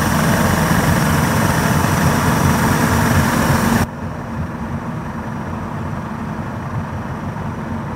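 A pair of Yamaha HPDI two-stroke V6 outboard motors running steadily with their cowlings off at about 1300 rpm. About four seconds in the sound abruptly drops and turns duller, losing its hiss.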